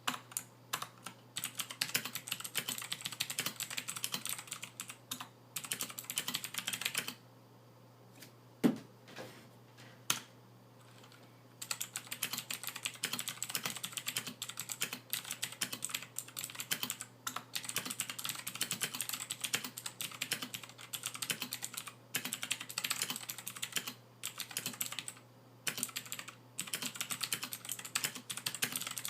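Fast typing on a Royal Kludge RK61 mechanical keyboard in fully stock form: stabilizers unlubricated, no case dampening, stock keycaps. The typing pauses for a few seconds about seven seconds in, with one louder single thump near nine seconds, then picks up again.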